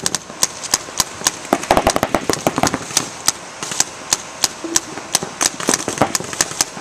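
Paintball markers firing uneven, scattered shots, a few a second with short clusters, as players trade fire across the field.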